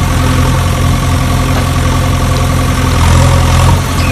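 Steady sound of a heavy vehicle engine idling, laid over the soundtrack as an effect. It swells slightly about three seconds in.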